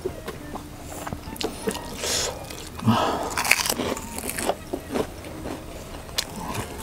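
Close-up eating: crunching and chewing of food, with scattered small clicks and crackles.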